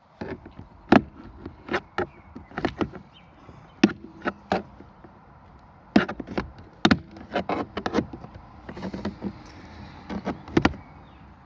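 A series of irregular sharp clicks and knocks: hands and tools working at a car door's plastic interior trim to get at the central locking switch.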